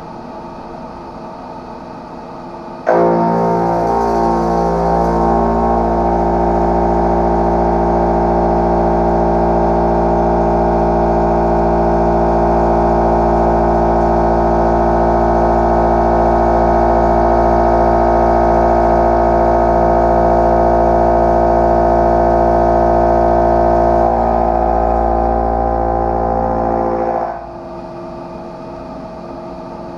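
Tungaloy TungTriShred indexable milling cutter with TCGT-MJ inserts, on a long overhang, milling a steel block: a loud, steady pitched buzz of evenly stepped tones. It starts suddenly about three seconds in as the cutter enters the cut, wavers in pitch for the first few seconds, and stops a few seconds before the end as the cutter leaves the work, leaving the lower hum of the machine.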